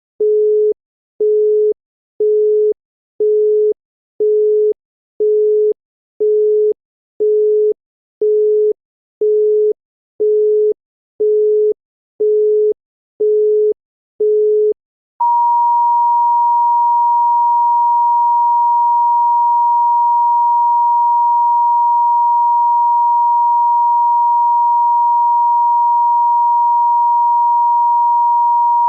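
Italian telephone busy tone, a low beep repeating about once a second. About halfway through it changes to the off-hook tone (howler), a single steady higher tone warning that the receiver has been left off the hook.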